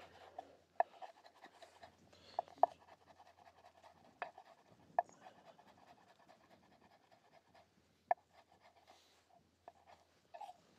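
Kitchen knife cutting a red chilli on a wooden chopping board: a handful of irregular knocks as the blade strikes the board, a second or more apart.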